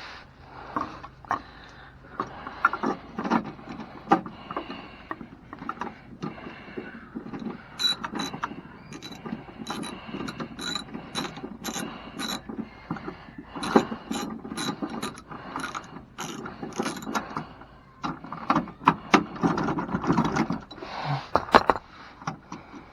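Hand ratchet wrench clicking in quick runs of strokes as it turns the bolts holding the step rail brackets. Between the runs there are irregular metallic knocks and handling noise from the tool and hardware.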